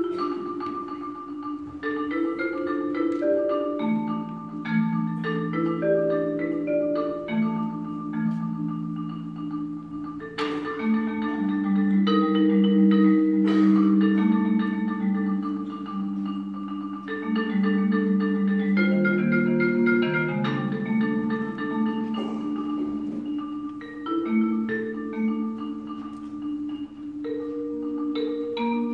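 Four-mallet solo on a keyboard percussion instrument: chords and runs of struck notes, several sounding at once, with some held for seconds.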